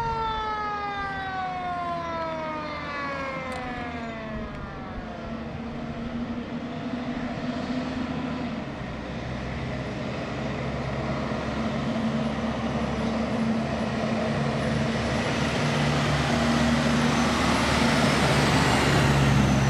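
Fire truck siren winding down in one long falling wail over the first five seconds, then the aerial ladder truck's engine running as it drives up the street, growing louder as it passes close near the end.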